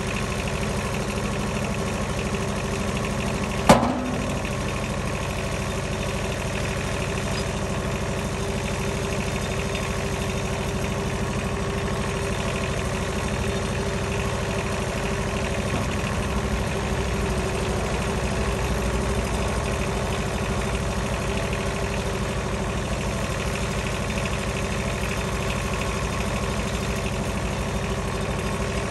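Wood-Mizer LT15 portable sawmill running steadily, with one sharp knock of wood or metal about four seconds in.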